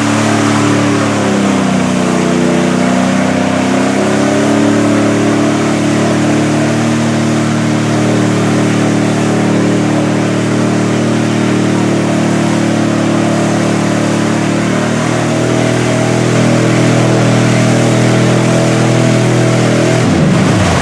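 Chevy mud truck's engine at full throttle, revs held high as it churns through deep mud. The pitch sags about two seconds in and climbs back by about four seconds, then shifts again near the end, over a steady rush of flung mud and water.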